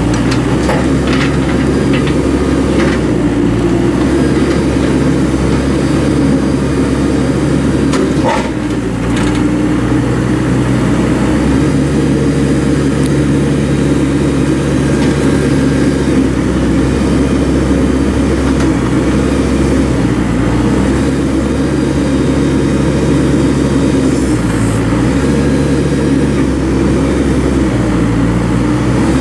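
Komatsu WB142-5 backhoe loader's diesel engine running steadily, its pitch shifting a few times, around twelve seconds in and again near the end. A short knock about eight seconds in.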